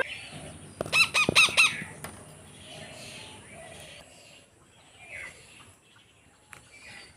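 Indian ringneck parrot calling: a quick run of four loud squawks about a second in, then a few fainter chirps.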